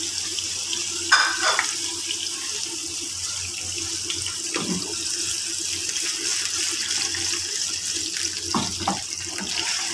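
Mutton spleen pieces sizzling in hot oil in a frying pan, a steady hiss just after the meat has gone in. A few brief louder crackles come about a second in, near the middle and near the end.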